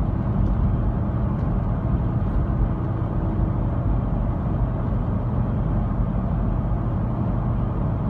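Cabin noise of a third-generation Toyota 4Runner cruising at about 60 mph, its 3.4-litre 5VZ-FE V6 turning just under 2,000 rpm, with a steady low rumble of engine and road. The engine is misfiring on cylinder 4 and shaking heavily, a fault the owner traced to a clogged or failed fuel injector.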